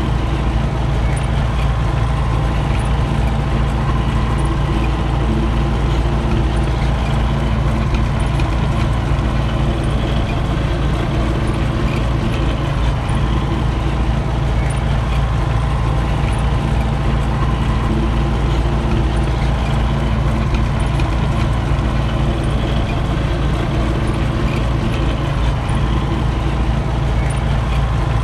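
Belarus MTZ-82 tractor's four-cylinder diesel engine running steadily as the tractor drives through snow, with an even pitch throughout.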